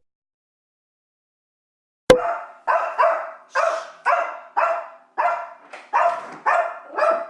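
Dead silence for about two seconds, then a sharp click and a dog barking over and over in short, evenly spaced barks, about two a second.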